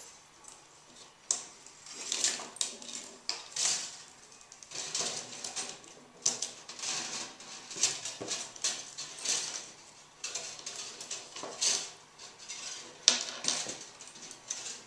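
Thin metal wire being handled and worked around the metal hanging rings of a chicken-wire picture frame: irregular light metallic clicks, scrapes and rattles.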